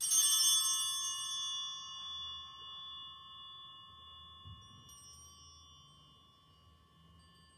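An altar bell struck once, ringing with several clear tones that fade slowly over about seven seconds. It marks the consecration of the bread in the Eucharistic prayer.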